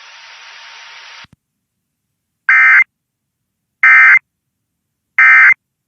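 Emergency Alert System end-of-message tones: three short, identical digital data bursts about a second and a half apart, marking the end of a tornado warning broadcast. A faint hiss of radio static fades out in the first second.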